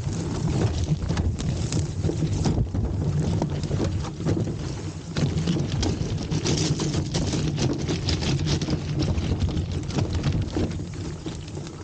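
Wind buffeting the microphone: a steady low rumble with crackling gusts throughout.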